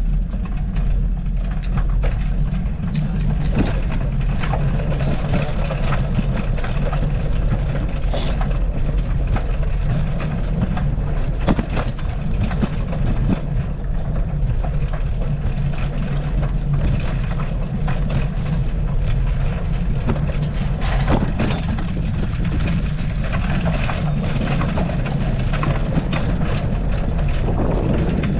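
Motorcycle engine running at a steady cruise, with tyre and road noise and occasional knocks and rattles from bumps in the lane.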